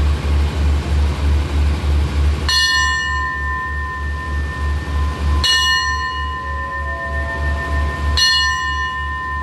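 Station bell struck three times, about three seconds apart, each strike ringing on in a steady two-tone note until the next: the departure signal for the waiting train. A low rhythmic throb runs underneath.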